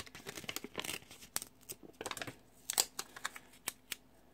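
Paper stickers being handled: irregular soft rustles and light taps as a burlap-print box sticker is peeled and pressed onto a planner page, stopping near the end.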